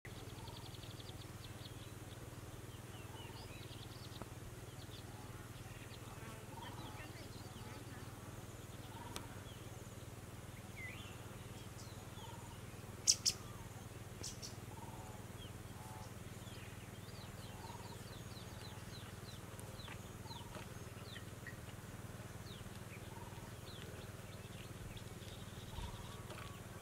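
Birds chirping and calling over a steady low hum, with one short note repeating about once a second. Two sharp clicks come about 13 seconds in.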